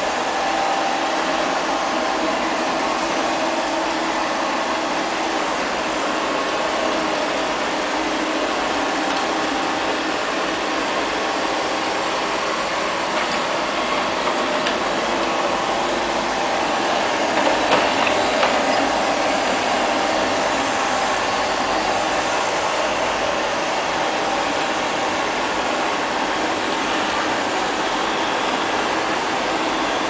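LL-306 robot vacuum cleaner running: a steady whir of its suction fan and side brushes, briefly louder about two-thirds of the way through.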